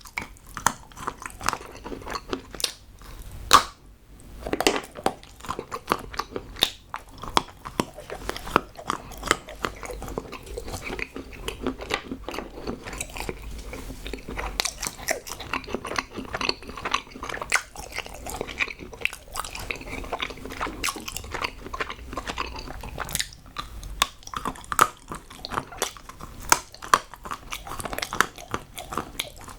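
A person biting and chewing solid chocolate: a steady, irregular run of crisp snaps and crunches with chewing between them. One louder crack comes about three and a half seconds in.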